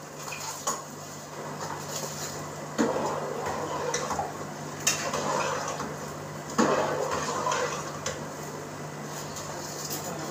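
Steel cookware clanking and scraping: a wide steel lid or tray and a cooking pot knocked together a few times. The strongest clanks come about three and six and a half seconds in, each followed by a short scraping rattle. A steady low hum runs underneath.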